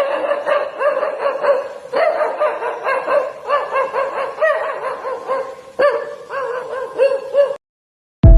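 A person vocally imitating a pack of dogs: a rapid, overlapping string of barks, yips and yelps that stops abruptly near the end. A sudden loud thump comes right at the very end.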